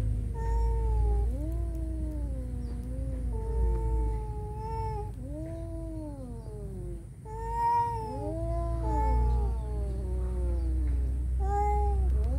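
Two domestic cats caterwauling at each other in a standoff: long, wavering yowls that rise and fall, from two voices, one higher than the other, overlapping almost without pause, with a short lull about seven seconds in. A low steady rumble runs underneath.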